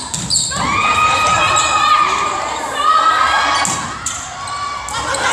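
Several high-pitched voices shouting and cheering during a volleyball rally, with long held yells that rise about a third of a second in and fade near the end.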